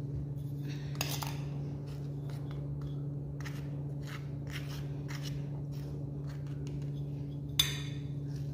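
A spoon scraping and clicking lightly against a steel plate as butter is put onto parathas, with one sharper clink near the end, over a steady low hum.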